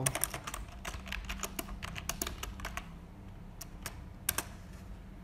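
Typing on a computer keyboard: a quick run of keystrokes for about three seconds, then a few separate key presses near the end.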